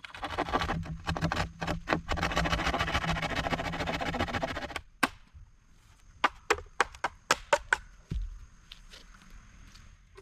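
Dense rustling and scraping for about five seconds, then a run of about eight sharp knocks, like a blade chopping wood or bamboo.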